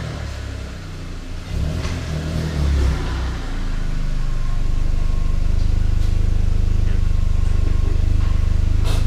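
Car engine and exhaust running with a low drone, building over the first few seconds and then holding steady.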